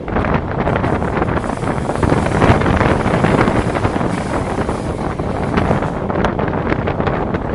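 Wind buffeting a microphone held out of the open window of a moving train, over the steady running rumble of the train.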